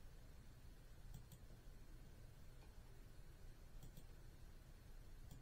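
Computer mouse clicking in quick pairs, three times, over faint room hiss.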